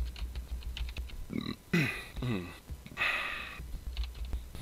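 Irregular light clicks like typing on a computer keyboard, with a brief murmured vocal sound falling in pitch about a second and a half in.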